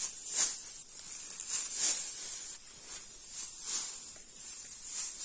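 Dry cut grass rustling and swishing as it is handled by hand, in several separate swishes, over a steady high insect hiss.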